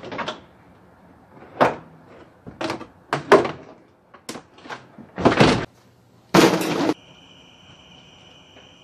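Plastic interior trim panels and carpet being pulled out of a hatchback's cargo area and thrown down: a string of loud thuds, knocks and plastic clatters. About seven seconds in these stop and a steady, high cricket chirping takes over.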